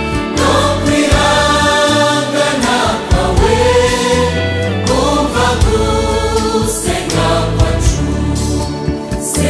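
Large mixed choir of men and women singing a Kinyarwanda gospel song in full harmony over band accompaniment with bass and drums.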